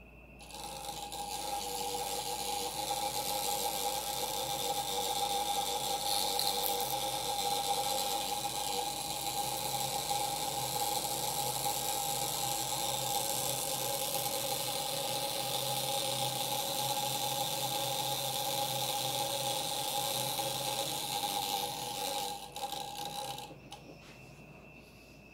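Antique violet ray high-frequency machine running: a steady hissing buzz from the high-voltage discharge in its glowing glass electrode, with a steady pitched tone under it. It switches on about half a second in and cuts off a couple of seconds before the end.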